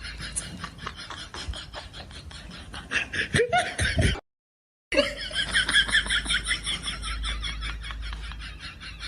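A person laughing in quick pulsed bursts, loudest about three seconds in and again around five seconds in, with a half-second dropout of dead silence between.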